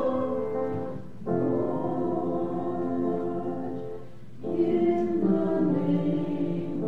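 A choir singing slow, held notes in phrases, with short breaths between phrases about a second in and just after four seconds in.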